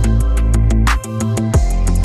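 Background music with a steady beat, heavy bass and sharp percussive hits.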